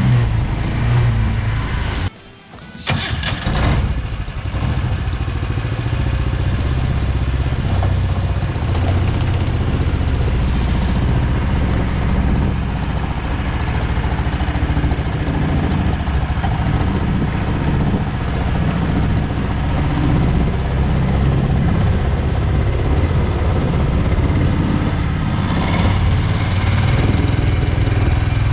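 Single-cylinder Predator gas engine running a Mud-Skipper long-tail mud motor on a duck boat. The sound drops out sharply for under a second about two seconds in, then the engine runs on steadily.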